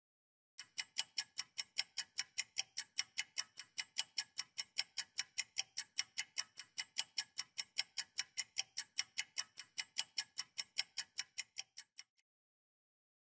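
Clock-ticking sound effect for a quiz countdown timer: fast, even ticks, about five a second, that stop about a second before the end as the timer reaches zero.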